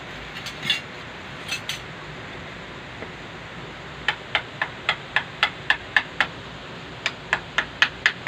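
Runs of sharp, evenly spaced clicks at about four a second, one run of about nine clicks past the middle and a shorter one near the end, with a few softer taps earlier.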